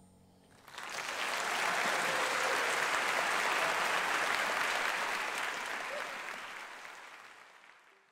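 Concert audience applauding, breaking out sharply about a second in as the final chord dies away, then fading out near the end.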